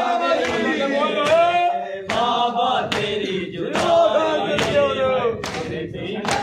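A group of men chanting a Punjabi noha (mourning lament) together, kept in time by sharp chest-beating slaps (matam), about one every 0.8 seconds.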